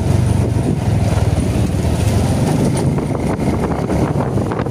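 A running engine giving a steady low rumble, with wind noise on the microphone.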